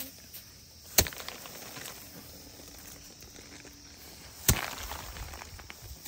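Two sharp thuds, about three and a half seconds apart, as a bundle of harvested rice stalks is beaten against a stone to thresh out the grain, each followed by a brief rustle of straw and scattering grain.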